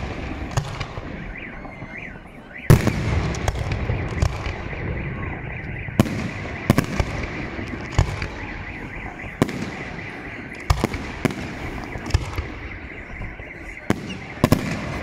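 Fireworks display: aerial shells bursting overhead in irregular sharp bangs, the loudest about three seconds in, over continuous rumble and crackle. A steady high tone runs underneath.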